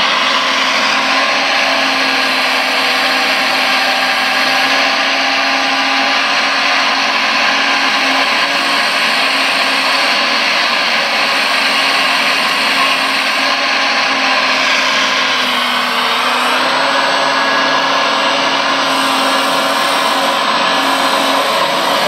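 Radio-controlled model hydraulic excavator (Liebherr 956) at work, its electric-driven hydraulic pump and motors giving a steady loud whir as it digs and swings. The pitch sags briefly about two-thirds of the way through, then picks up again.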